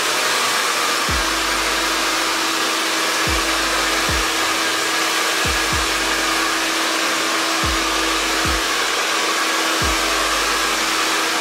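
Handheld hair dryer running steadily on hot air, a rushing blow with a constant hum, drying freshly sprayed hair paint. Deep falling bass notes of background music sound underneath every second or two.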